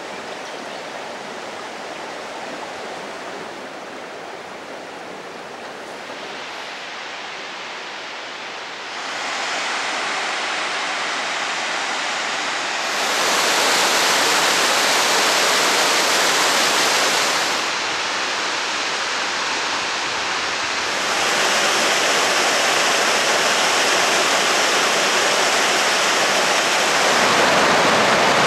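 Water rushing over a waterfall and its rock cascades as a steady roar. It is softer for the first several seconds, then steps louder in stages at each change of shot, and is loudest near the end.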